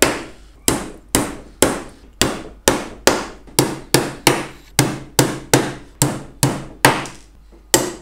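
Hammer driving nails into the wooden walls of a beehive super: a steady series of sharp strikes, about two a second, each with a short ring.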